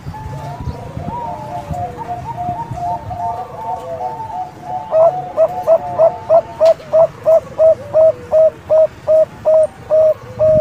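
Young Bangkok-line zebra dove (perkutut) singing. It gives a soft, wavering run of coos for about five seconds, then a fast, even series of about twenty short, clipped coo notes, roughly three to four a second.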